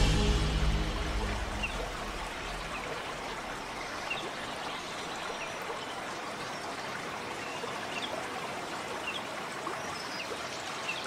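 Steady running water, like a stream, after background music fades out in the first second.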